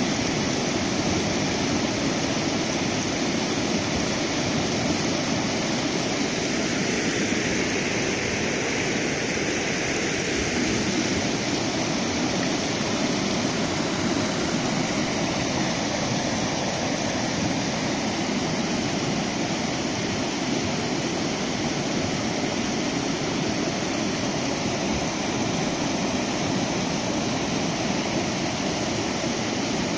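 Floodwater rushing over a submerged dirt road, churning in standing waves: a steady, unbroken rush of fast-moving water.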